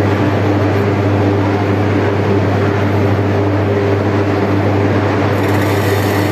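Steady, loud din of a steel melting shop while a crane-held ladle pours molten steel into another ladle: a deep hum with a few steady tones, under a rushing noise. A brighter hiss comes in about five seconds in.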